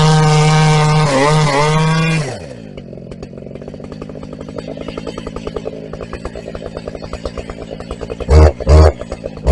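Husqvarna 380 CD two-stroke chainsaw held at full throttle, then dropping to an uneven idle about two seconds in. Two quick throttle blips come near the end.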